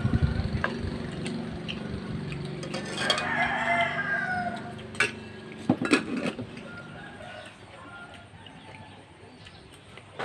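A rooster crows once, about three seconds in, the call falling at its end. A spoon clicks against a bowl a few times shortly after, and a low engine hum fades out in the first second.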